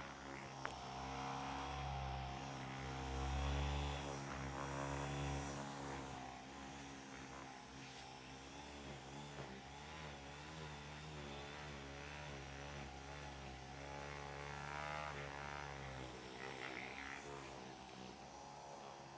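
Electric handheld massager's motor buzzing steadily, its pitch wavering up and down.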